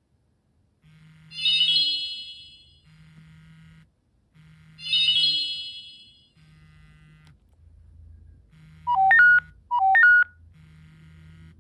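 Nokia N79 stock message alert tones from the phone's speaker. A bright chiming alert sounds twice, about three and a half seconds apart. Near the end a different alert begins: two quick electronic blips a second apart, each stepping between pitches. A low buzz switches on and off about once a second underneath.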